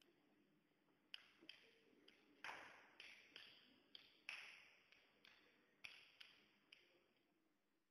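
A run of about fifteen light, ringing pings or taps, two to three a second, each dying away quickly; they start about a second in and fade out near the end.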